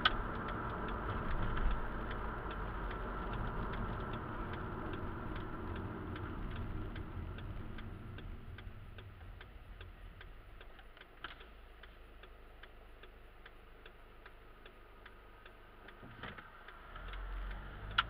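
A car's turn-signal indicator ticking steadily, a couple of clicks a second, over tyre and engine noise that fades about halfway through as the car slows to a stop. Near the end another car drives past.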